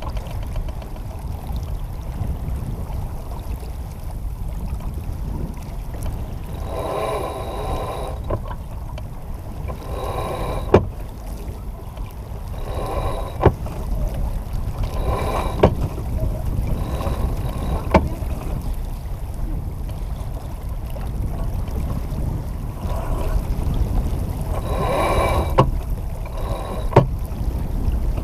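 J-35 sailboat moving under sail: a steady low rumble of wind on the microphone and water rushing along the hull. A few sharp knocks are scattered through it.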